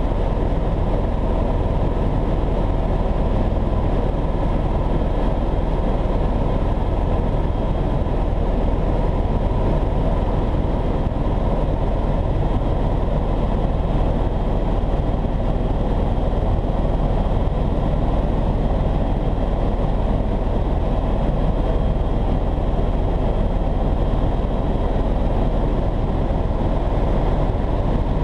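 Helicopter in flight heard from inside the cabin: a steady, low drone of engine and rotor that does not change.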